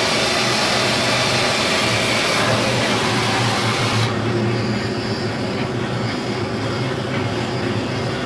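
Shipyard machinery noise: a loud, steady mechanical din with a low hum. A high hissing part of it stops abruptly about four seconds in, leaving the lower machine drone running.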